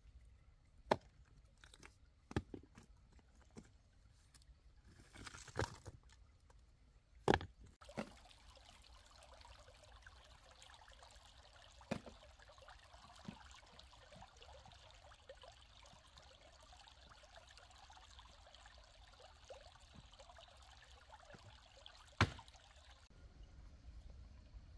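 Scattered knocks and clicks, then water trickling and pouring steadily for about fifteen seconds before stopping short near the end, with a few more knocks along the way.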